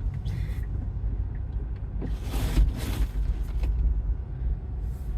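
Low, steady rumble inside a Tesla's cabin as it creeps forward through deep snow. A loud hiss lasts about a second in the middle, with a shorter one near the start.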